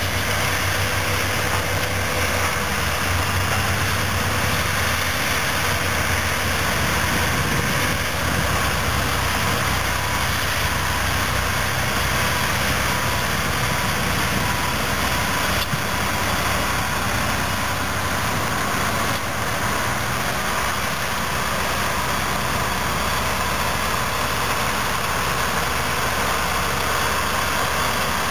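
Caterpillar D10N dozer, repowered with a C27 V12 diesel, and a Caterpillar 651B wheel tractor-scraper running together under heavy load as the dozer push-loads the scraper. A steady, dense diesel engine noise that holds at the same level throughout.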